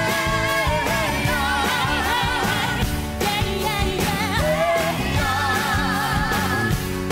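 Live pop band playing, with a female voice singing long, wavering notes over it.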